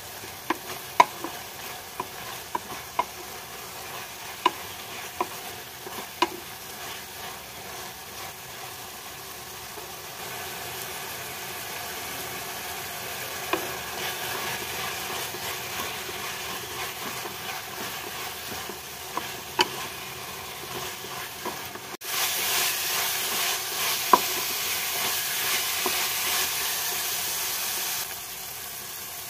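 Chopped collard greens and onions sizzling in oil in a non-stick pan while a wooden spatula stirs them, with sharp taps of the spatula against the pan, most of them in the first several seconds. The sizzle grows louder partway through, jumps louder suddenly about two-thirds of the way in, and drops back near the end.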